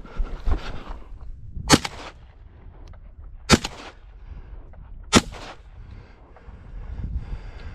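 Shotgun firing three shots in quick succession, the second and third each coming a little under two seconds after the one before.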